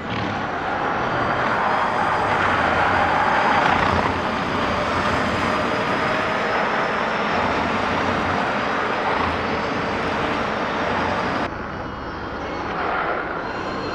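A pack of NXT Gen Cup electric Mini race cars passing at speed: the high, gliding whine of their electric motors over tyre and rushing air noise. The sound changes abruptly about eleven seconds in, to a single car passing.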